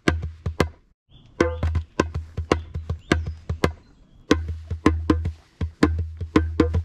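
Djembe played with bare hands in a quick rhythm of sharp slaps over deep bass tones, pausing briefly about a second in and again about four seconds in.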